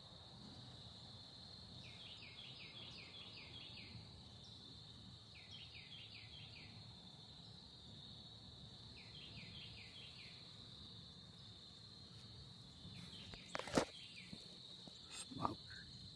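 Crickets and other insects trilling faintly: a steady high trill, with a run of short chirps every three or four seconds. Two sharp knocks near the end as the phone is handled.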